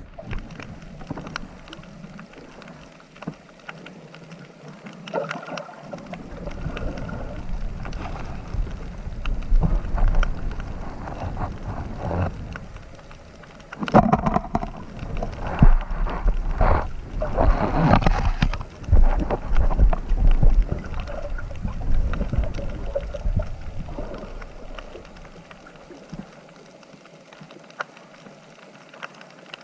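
Water noise: a rushing, splashing wash with scattered knocks and clicks and a low rumble. It swells to its loudest about halfway through, then settles back.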